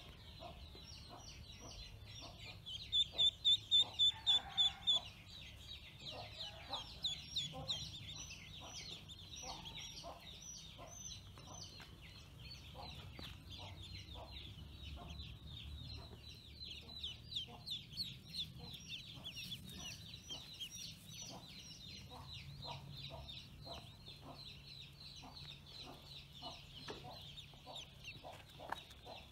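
A brood of newly hatched ducklings peeping constantly, many high short peeps overlapping. About three seconds in, one duckling close by gives a loud run of about ten peeps.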